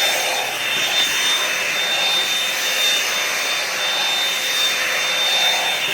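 Revlon One-Step hair dryer and volumizer brush running on high: a steady rush of blown air with a constant high-pitched motor whine.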